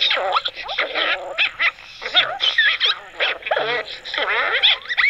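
A group of coyotes yipping, whining and howling over one another in a chorus, in many short yips and wavering calls that rise and fall in pitch.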